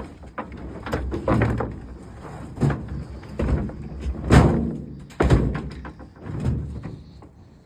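A series of knocks and thuds from things being handled and set down, the two loudest a little over four and five seconds in.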